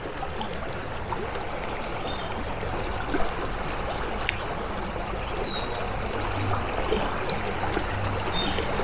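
Stream water running steadily, an even, continuous rushing, with a couple of faint clicks a few seconds in.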